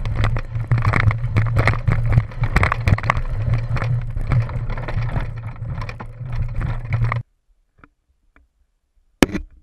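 Mountain bike rattling and clattering over a rocky trail, heard through a camera mounted on the bike: tyres knocking on loose stones, with the frame and the mount shaking and a low rumble. It stops abruptly about seven seconds in, and near silence follows, with one sharp knock near the end.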